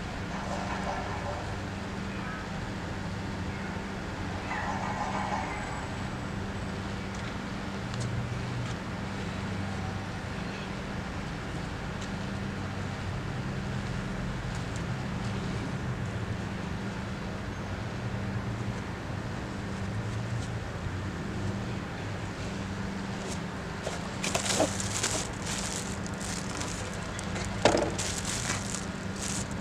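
Steady low mechanical hum. In the last few seconds comes a spell of crackling and rustling with a couple of sharp knocks, like parts being handled.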